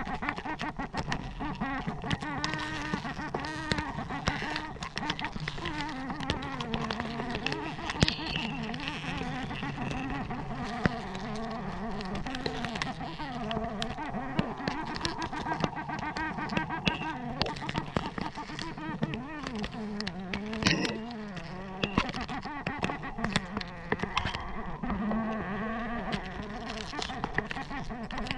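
Giant honey bees (Apis dorsata) buzzing in a swarm close around the microphone, many wavering pitches at once: the colony disturbed as its comb is harvested. Frequent sharp clicks and knocks of handling run through it.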